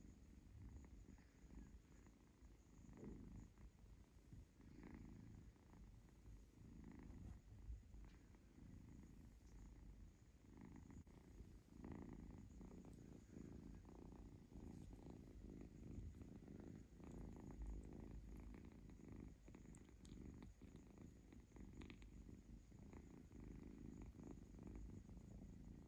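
Kitten purring softly and continuously while being stroked and tickled on the belly.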